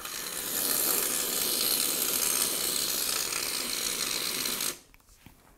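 Aerosol can of whipped cream spraying cream into a mug: a steady hiss that runs for nearly five seconds and then cuts off sharply.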